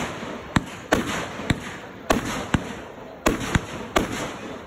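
Consumer aerial fireworks going off in quick succession: about nine sharp bangs, roughly two a second, each followed by a short fading hiss.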